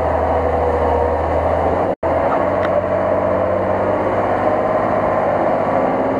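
Unimog-ZIL off-road truck's engine running under load as the truck churns through deep mud. The sound cuts out for an instant about two seconds in, and the low engine note changes after the break.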